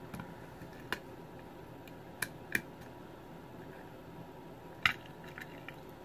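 Light, sharp metallic clicks from a Cole 5-pin kik cylinder lock being worked with a small tool: about four distinct clicks, the loudest a little before the end, followed by a couple of fainter ticks.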